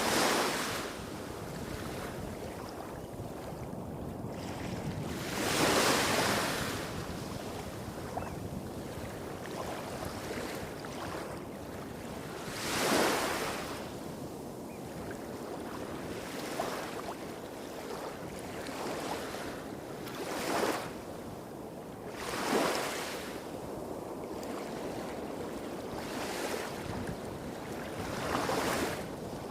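Small sea waves breaking and washing up a beach, about seven gentle surges a few seconds apart over a steady background rumble of surf hitting rocks a few hundred metres away.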